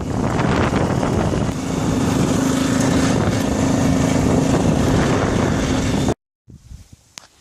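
Motorbike riding on a dirt road: wind buffeting the microphone over the engine's steady drone. It cuts off abruptly about six seconds in, leaving only faint sounds.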